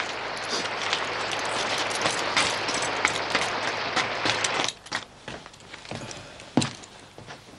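Steady heavy rain with a clicking crunch of wheelchair wheels rolling over wet gravel; it cuts off sharply about two-thirds through, leaving a quieter room where a few footsteps and knocks sound.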